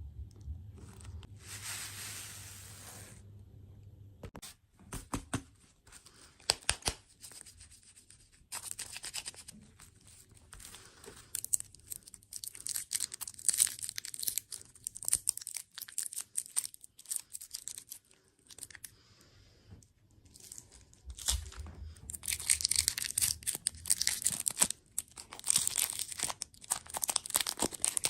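Plastic food packaging being torn open and crinkled, in irregular bursts of crackling that grow densest near the end.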